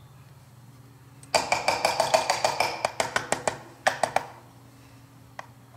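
Ratcheting screwdriver clicking rapidly, about seven sharp, ringing metallic clicks a second for about two seconds, then three more clicks, as a screw in a carburetor is turned. A single light tick comes near the end.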